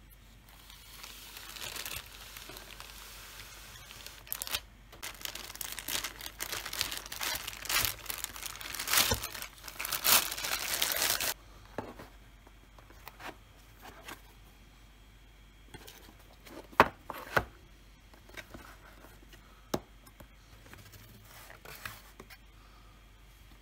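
Packaging being torn and crinkled for the first ten seconds or so. It stops suddenly, and scattered light taps and clicks follow as the cardboard box is handled and opened.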